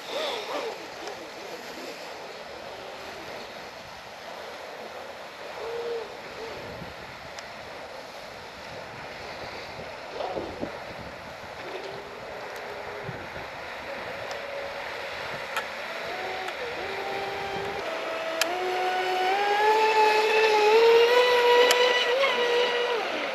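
Traxxas Disruptor RC speedboat's electric motor whining on a speed pass. It is faint at first, then climbs in pitch in small steps and grows louder as the boat speeds up and closes in, and drops in pitch near the end as it goes by.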